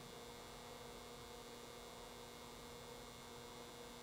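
Near silence: a faint, steady electrical hum of room tone.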